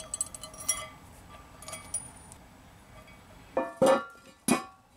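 Rusty steel U-bolt handle clinking against a cast-iron manhole cover as it is fitted through the cover's holes, followed by two louder ringing metal clanks in the last second and a half.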